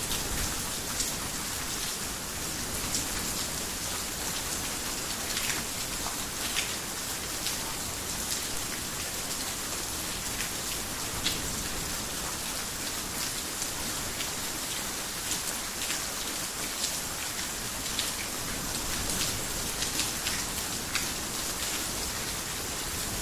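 Heavy rain falling on a roof: a steady, even hiss with scattered sharper drop taps.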